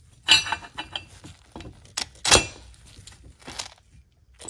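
Cordless Makita impact wrench firing in several short bursts on a jet-pump impeller nut, loosening the nut while the impeller is held back with a wrench.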